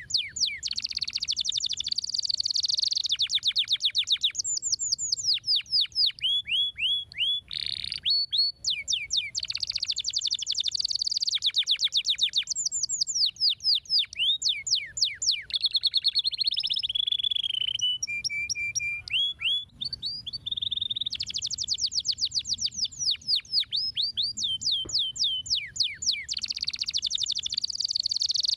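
Domestic canary singing: long rolling trills of rapid notes, each sweeping down in pitch, broken by short pauses, with a brief held whistled note about two-thirds of the way through.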